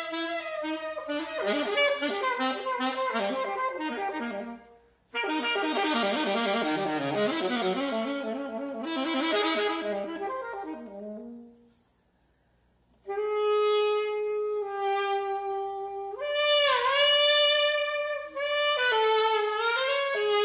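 Unaccompanied alto saxophone playing improvised jazz. It plays fast runs of notes, breaks off briefly about five seconds in, and then plays a dense flurry. After about a second of silence past the middle it plays long held tones that bend in pitch.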